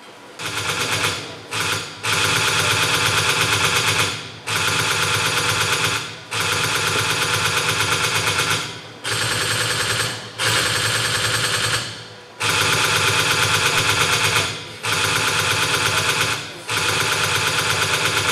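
Machine-gun fire played as a theatre sound effect: repeated bursts of rapid, evenly spaced shots, each one to three seconds long, with short breaks between.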